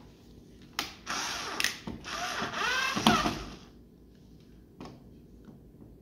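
Cordless drill/driver driving a switch mounting screw into the electrical box. The drill runs for about two and a half seconds, starting about a second in, with its pitch wavering as the screw is driven home. A sharp click comes just before it starts and another near the end.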